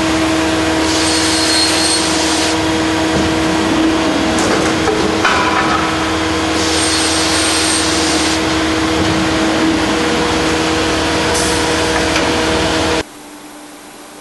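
Stromab Matrix F optimising crosscut and notching machine running: a steady motor hum, with two louder high-pitched passes lasting about two seconds each. About a second before the end it drops abruptly to a much quieter hum.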